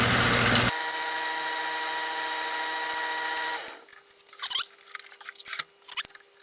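Metal lathe running while center-drilling a phenolic plastic blank: a harsh cutting noise at first, then a steady machine hum that stops about four seconds in, followed by a few light clicks and knocks.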